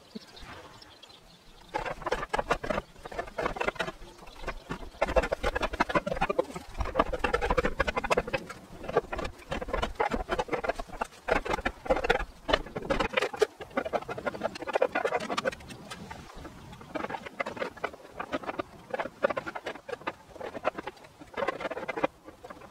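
Roof tiles clinking and knocking against one another as they are picked off stacks and laid on the battens: a dense, irregular clatter of short hard clicks.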